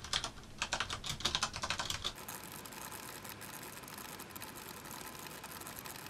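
Touch-typing on a mechanical keyboard with Cherry MX Brown switches: fast, uneven bursts of key clacks. About two seconds in, the typing is fast-forwarded and becomes a dense, even rattle.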